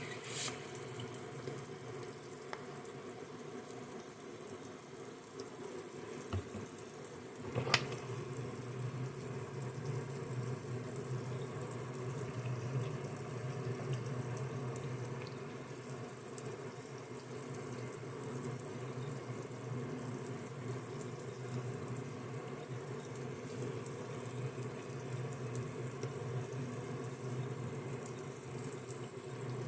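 Tap water running steadily into a sink, with a sharp click about eight seconds in, after which it is a little louder.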